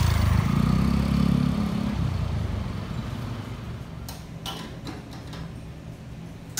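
Motor scooter engine running as it passes close by, loud for the first two seconds, then fading away. A few light clicks follow near the end.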